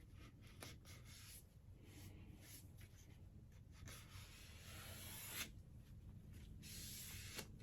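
Faint rubbing and scratchy handling sounds from hands working on a wooden picture frame, with a couple of longer rubbing strokes later on and a few light clicks.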